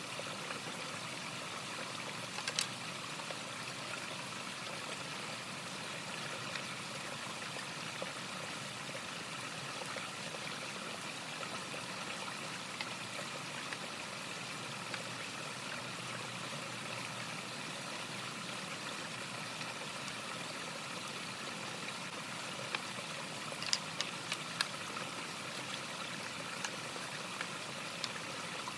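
Steady rushing, water-like noise, with a few faint clicks a couple of seconds in and again near the end.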